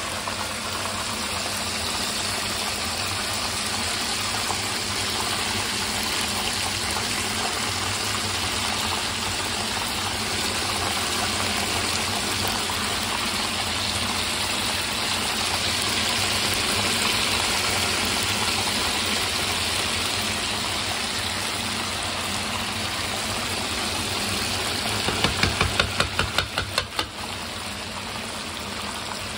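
Beer-battered cod fillets frying in hot oil in a skillet: a steady, loud sizzle, with a quick run of sharp knocks near the end.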